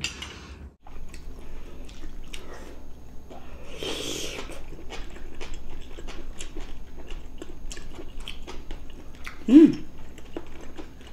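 Close-miked chewing, biting and lip-smacking of people eating braised pork ribs and potatoes: many small wet clicks, with a brief vocal sound near the end.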